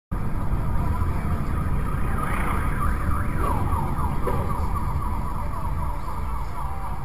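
A siren with fast, repeated rising and falling sweeps over a loud, steady low rumble of a vehicle on the move. It starts abruptly.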